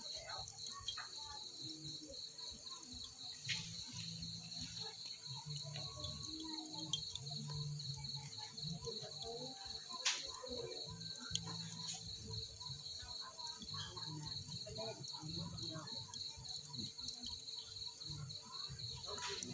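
Crickets chirping steadily in a fast, even pulsing trill. A few short clicks sound over them, the sharpest about ten seconds in.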